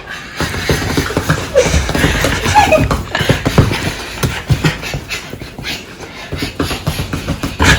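A person imitating a dog with rapid huffing, panting noises and a couple of short yelps.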